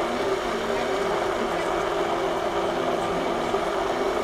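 A steady mechanical hum with a constant low drone that does not change.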